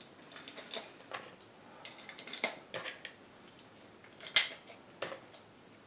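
Scattered light clicks and ticks with soft handling noise between them; the sharpest click comes a little past the middle.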